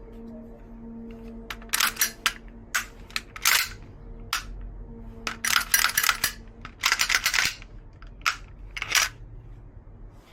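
Gas blowback airsoft Glock 17 pistol firing, sharp reports with the slide cycling, in quick strings of several shots with pauses between them.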